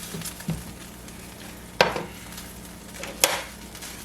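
Steak searing in a hot skillet: a steady sizzle, broken twice by sharp clinks about a second and a half apart, such as a utensil striking the pan.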